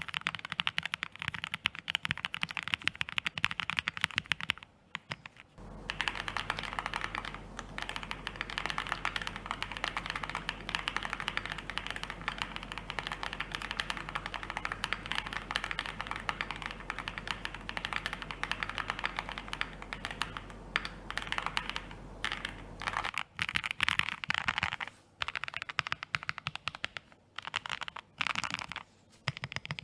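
Fast typing on a Velocifire Dolphin 75 keyboard, a dense patter of key clicks. The typing pauses briefly about five seconds in and becomes more broken, in short bursts, over the last several seconds.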